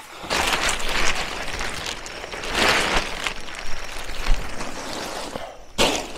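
Black plastic groundsheet rustling and crackling as it is shaken out and spread over grass, in surges about a second in and about three seconds in, with a short burst near the end.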